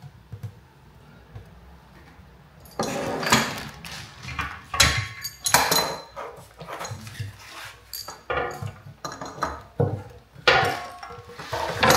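Knocks, clunks and scrapes of a heavy metal control box being lifted and fitted onto a steel stand's bracket, starting a few seconds in and going on in irregular clatters.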